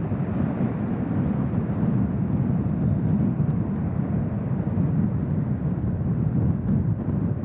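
Jet airliner's engines during its take-off, a steady low rumble with little high-pitched sound.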